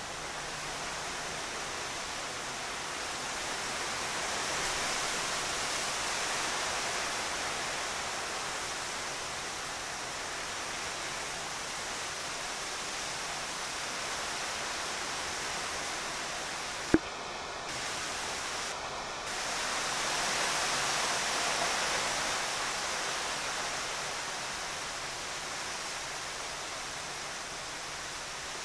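Steady background hiss that swells and eases a little, with one sharp click about two-thirds of the way through.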